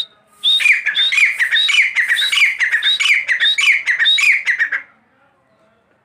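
Grey francolin calling: a rapid run of about eight loud repeated phrases, each a high note that drops into lower notes, then it stops.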